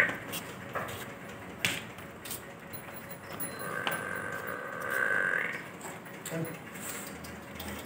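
Murrah buffalo giving one drawn-out call about three seconds in, rising in pitch at its end, with a few sharp knocks before it.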